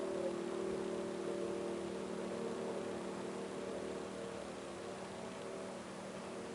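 A steady, distant droning hum made of several held tones over a background hiss. It is one of the unexplained night-time 'strange sounds', whose source is unknown.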